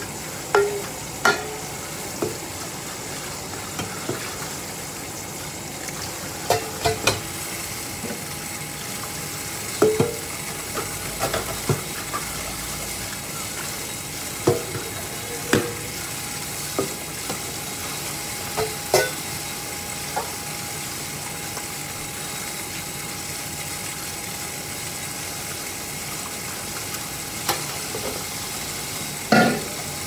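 Steady hiss of water spraying from a kitchen faucet into a stainless-steel sink, with irregular sharp clanks and clinks of metal bowls knocked together and against the sink as they are scrubbed and rinsed.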